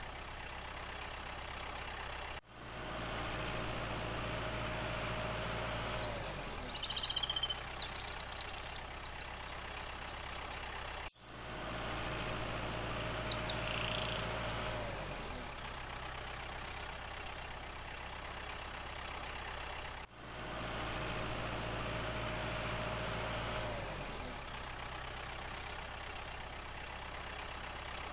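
A motor running steadily with a low hum and a held tone that sags in pitch every few seconds. The same pattern repeats in segments broken by abrupt cuts, with a few bird chirps near the middle.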